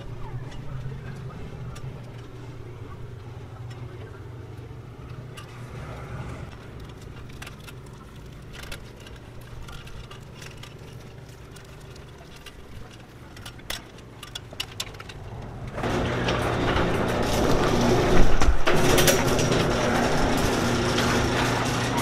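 Small clicks and rustles of wires and a plastic terminal connector being handled, over a steady low hum. About sixteen seconds in, a much louder steady mechanical running starts: the garage door opener driving the door along its track.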